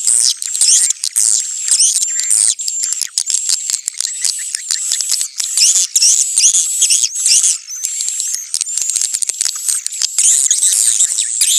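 Swiftlets' courtship call: a dense, continuous flock of high-pitched overlapping chirps, twitters and rapid clicks. It is the kind of swiftlet call recording played in a swiftlet nesting house to lure the birds in.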